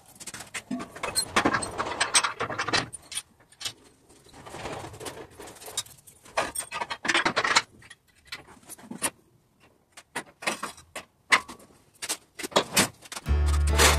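Irregular metal clanks, clicks and rattles of car-lift parts being handled, with footsteps on a concrete floor. Background music comes in near the end.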